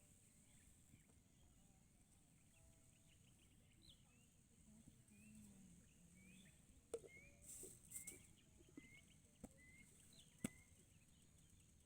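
Quiet open-air ambience: a bird giving short, faint chirps over and over, about two a second, over a steady high hiss, with a few sharp clicks in the second half.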